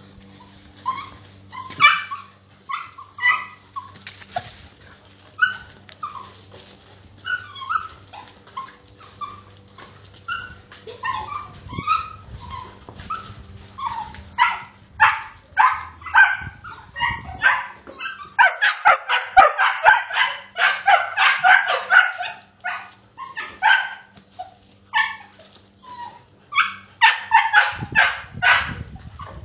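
Several puppies barking and yipping excitedly in short, high-pitched calls as they play and jump up. The barking is scattered at first, then becomes a dense run of overlapping barks about two-thirds of the way through and again near the end.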